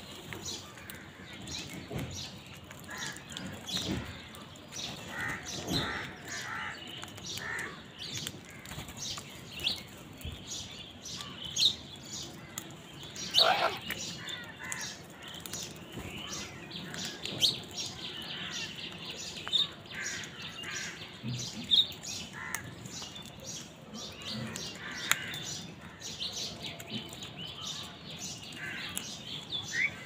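A flock of house crows calling now and then, in short caws, while they feed together, mixed with scattered high chirps from smaller birds; one caw about halfway through stands out as the loudest.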